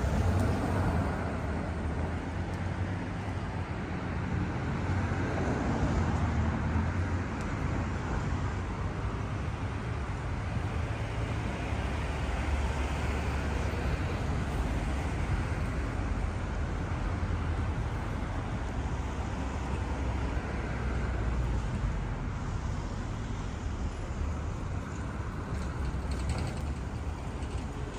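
Road traffic: cars going by, a steady low rumble of engines and tyres.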